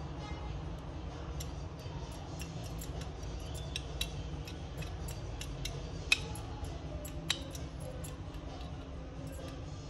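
A needle distribution (WDT) tool stirring espresso grounds in a portafilter basket: irregular small metallic clicks and ticks as it knocks against the basket, with two sharper clicks about six and seven seconds in, over a steady low hum.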